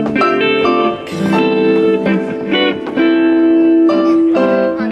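Live instrumental music from an electric guitar and a Yamaha S90 keyboard, the guitar playing a melodic line of changing and held notes.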